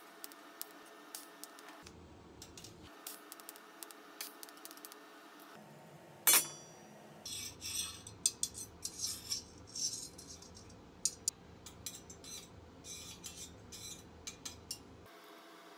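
Steel stove parts being handled and knocked together: scattered clicks, one sharp ringing metal clank about six seconds in, then a run of quick light metallic clinks and rattles.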